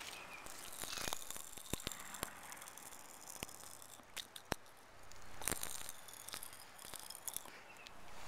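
Pop Rocks candy popping and crackling inside a closed mouth full of Diet Coke: faint, irregular sharp pops scattered through, with a brief rustle about five seconds in.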